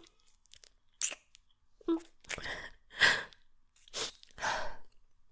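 A string of about six soft kisses and breaths from a woman close to the microphone, each a short lip smack, spaced about half a second to a second apart.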